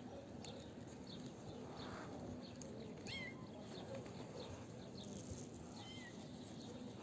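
Small birds chirping over and over, with a few short, sharp falling calls about three and six seconds in. A faint steady hum runs underneath.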